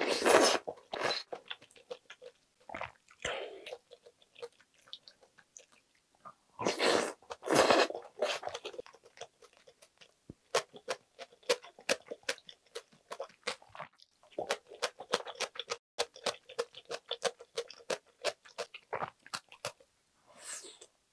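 Close-up eating sounds: loud slurps of noodles from the stew at the start and again about seven seconds in, then a long run of crisp, rapid crunching as a piece of cucumber muchim is chewed, and another slurp near the end.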